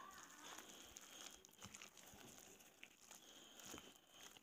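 Very faint scraping and small clicks of a silicone spatula stirring thick, lumpy soap paste in a glass bowl.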